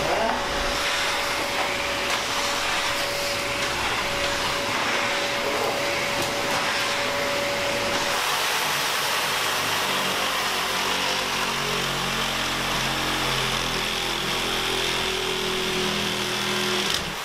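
Steady machine noise: a continuous hiss with a humming tone, the hum shifting to a lower set of tones about eight seconds in.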